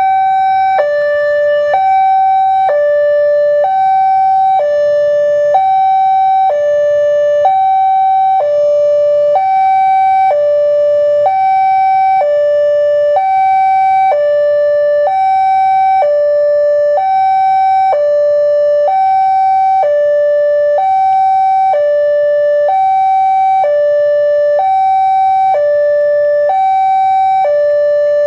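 Railway level crossing alarm sounding from the loudspeaker on the crossing post: an electronic two-tone warning that alternates steadily between a higher and a lower note, each held about a second. It signals that a train is approaching and the barriers are down.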